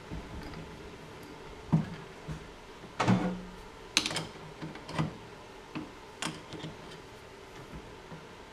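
Adjustable wrench clinking and knocking on the steel nut of a lathe's quick-change tool post as it is fitted and turned: a string of sharp metallic clicks and knocks, about one a second, the loudest about three seconds in.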